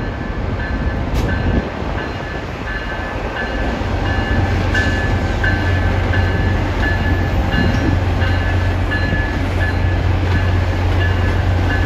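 Locomotive bell ringing steadily, about one and a half strikes a second, over a train engine's low steady drone that grows louder about four seconds in, as the train gets under way.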